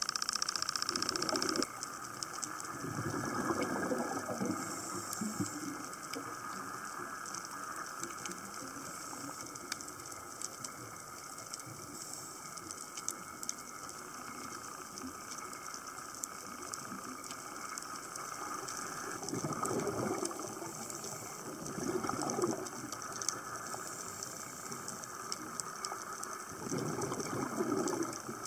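Underwater ambience on a scuba dive: a steady hiss with faint crackling, broken by a few swells of bubbling from a diver's exhaled breath, near the start, twice about two-thirds through, and again near the end.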